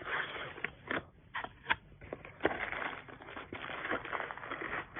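Crinkling and rustling of packaging being handled while unboxing, with irregular clicks and scrapes of plastic and cardboard.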